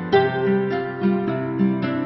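Background music: a plucked string instrument picking out a melody, a new note every fraction of a second.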